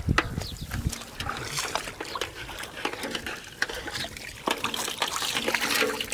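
Shallow muddy water splashing and trickling as a plastic basket is swept through it and lifted, water draining out through the basket's mesh, with irregular sharp splashes throughout.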